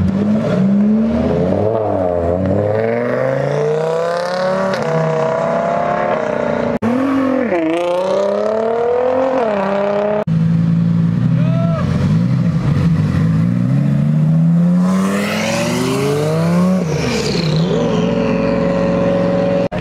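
Lamborghini V10 engines accelerating hard as the cars pull away and pass, the pitch climbing through each gear and dropping at each shift. Three separate takes, cut together abruptly about seven and ten seconds in.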